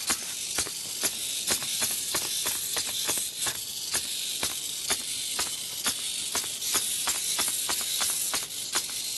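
A small 3D-printed three-servo hexapod robot walking. Its legs click at an uneven pace, about two or three clicks a second, over a steady high hiss.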